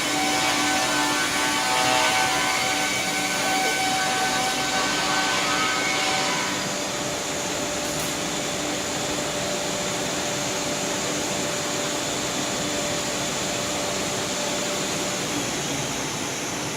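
Two-shaft multi-rip circular saw machine running, its gang of blades sawing timber with a steady whine over a dense hiss. About six and a half seconds in, the whining tones fade and the sound eases slightly into a steady hiss.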